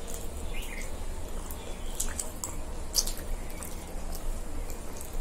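Two people chewing pizza: scattered wet smacks and clicks, the sharpest about three seconds in, over a steady low hum.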